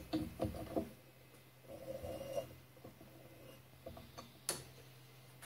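Handling noises: several light knocks and clicks in the first second, a short scrape about two seconds in, and a few more clicks near the end, over a low steady hum.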